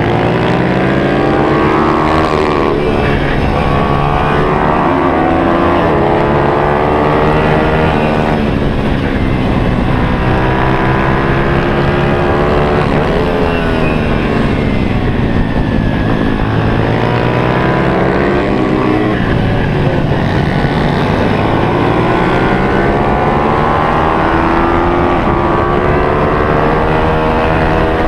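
Four-stroke single-cylinder pit bike engine heard from onboard at full racing pace, revving up hard along the straights and dropping back into corners, over and over.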